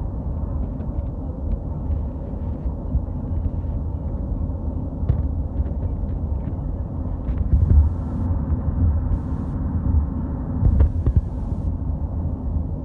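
Steady low road rumble inside a car cabin moving at highway speed, with a few faint clicks.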